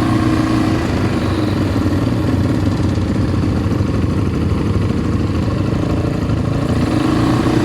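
ATV engine running steadily at a constant level, with a mid-pitched engine tone that fades in the middle and comes back near the end.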